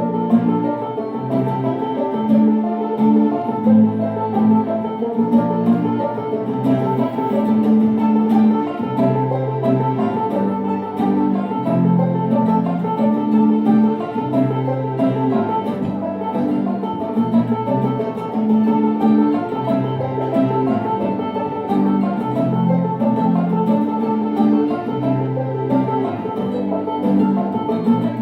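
Live acoustic string-band instrumental music, with a plucked banjo and guitar over a steady, repeating bass line.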